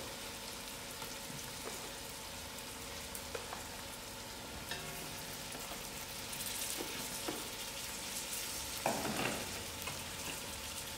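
Chicken feet frying in hot oil with onions and masala: a steady sizzle, with a few light clicks scattered through it.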